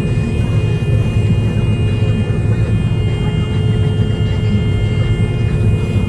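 John Deere combine running while harvesting soybeans, heard from inside the cab: a steady low drone with a constant high-pitched whine over it.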